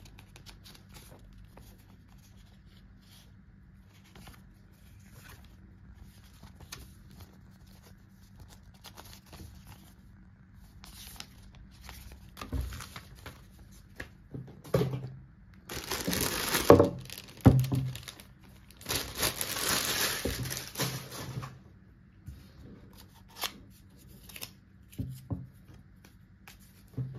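Thin plastic bag crinkling and rustling as it is pulled off a new steam iron, loudest in two long stretches in the middle. Before that come faint rustles and light handling clicks, and after it a few short knocks.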